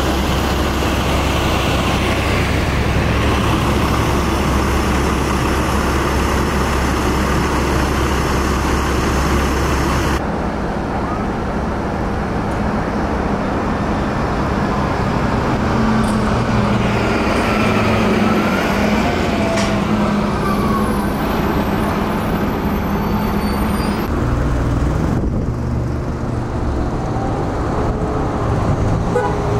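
Fire department vehicles driving past: diesel engines running and tyre and road noise, with the sound changing abruptly twice. In the middle stretch a Phoenix fire engine passes with a faint siren rising and falling, and near the end a red Ford Super Duty pickup drives by in traffic.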